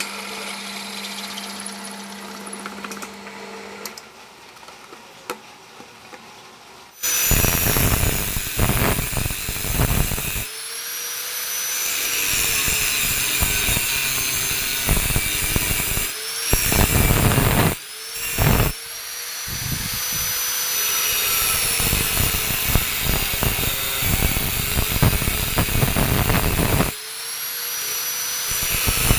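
A bench drill press boring into a metal bar, its motor humming steadily for the first few seconds. From about seven seconds in, an angle grinder with a cut-off disc cuts metal flat bar held in a vise, its high whine dipping as the disc bites and rising again as it eases off, with a few short breaks.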